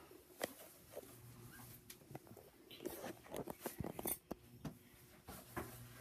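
Hunter ceiling fan running with a faint low motor hum, with scattered light clicks and ticks at irregular intervals.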